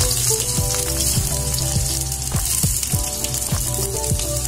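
Sliced shallots frying in hot oil in a wok: a steady sizzle with many small crackling pops.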